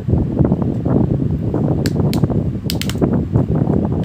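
Handling of a Xiaomi Redmi 9A phone in the hands: a few sharp plastic clicks, about two seconds in and again a little later, over a steady low rumble with a crackle.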